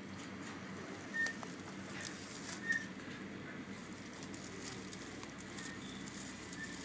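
Short-beaked echidna rustling and scratching through dry leaf litter and gravel as it forages, with soft scattered crackles.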